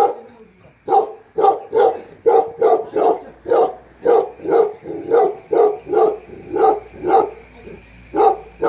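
Tibetan mastiff barking in a steady run, about three barks a second, starting about a second in with a short break near the end.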